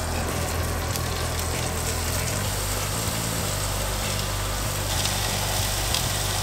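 Flour-dredged beaver meat sizzling in hot oil in a frying pan as the pieces are laid in, a steady hiss over a low steady hum, with a few light clicks near the end.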